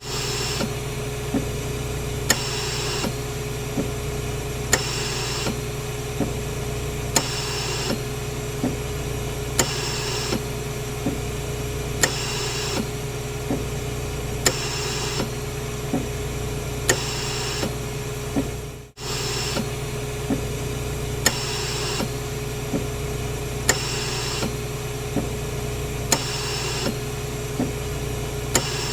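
Hospital ventilator running: a steady hum and tone, with a puff of air hiss every couple of seconds and sharp clicks between the puffs. The sound drops out for a moment about two-thirds of the way through.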